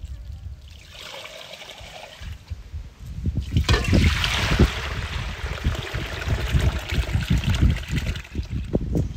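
Starchy rinse water being poured off washed rice from an enamel basin, splashing into a metal basin below. A brief slosh about a second in, then a loud, heavy pour from about three and a half seconds in that eases off near the end.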